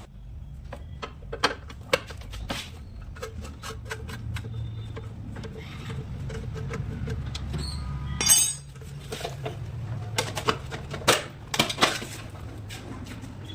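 Irregular clicks, taps and metallic clinks of tools and parts being handled, over a low steady hum, with a louder rattling clatter about eight seconds in.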